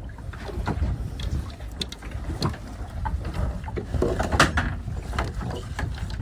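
Steady low rumble of a small fishing boat at sea, with wind on the microphone and scattered knocks and clicks of gear on the boat. The loudest knock comes a little past four seconds in.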